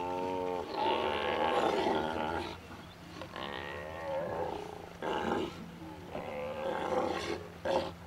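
Steller sea lions calling while two of them face off in the water: a string of harsh, rough calls one after another, loudest in the first two seconds.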